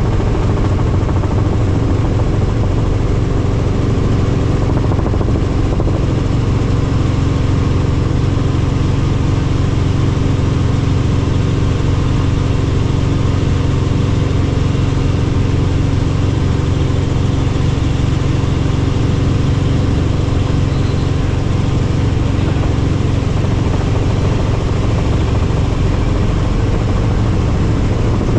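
Helicopter in flight: a steady, loud drone of engine and rotor that holds level the whole time.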